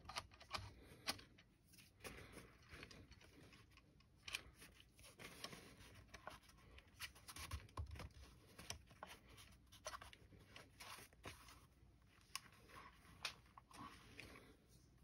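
Faint handling sounds: scattered small clicks and light rustling as an accessory rail is worked into place against a spotting scope's fabric cover.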